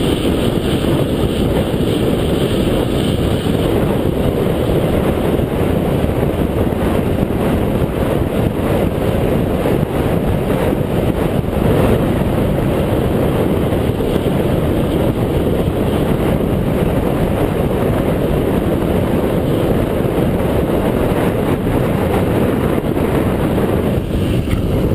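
Rushing wind on a bicycle-mounted camera's microphone during a fast road descent, around 35–40 mph: a steady, loud, low rumble.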